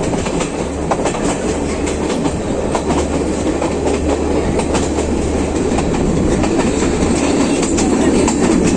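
Train running on the rails: a steady rumble with scattered clicks and clacks of the wheels, growing slightly louder near the end.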